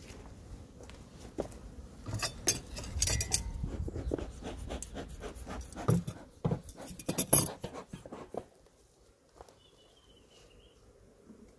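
Handling noise: a phone rubbing and knocking against the fabric of a bee suit, a run of rustles, clicks and knocks as it is held and set down, ending about three-quarters of the way in. After that it is quiet but for a few faint ticks and one brief high chirp.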